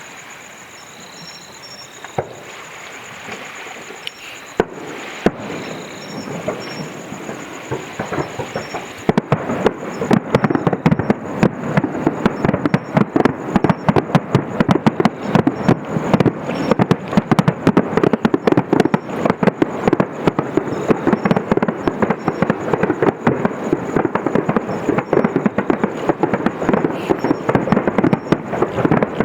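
Fireworks display: a few separate bangs at first, then from about a third of the way in a dense, continuous barrage of rapid bursts and crackles that stays loud to the end.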